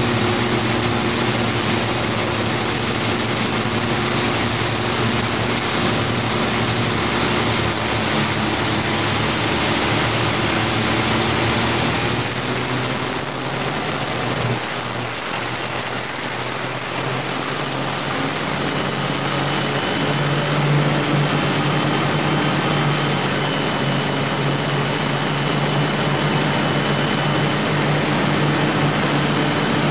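Twin Scania 12-litre six-cylinder diesel engines of a fast powerboat running hard at speed, under a steady rushing noise of wind and water. A little after halfway the sound dips briefly and the engine note then settles slightly higher.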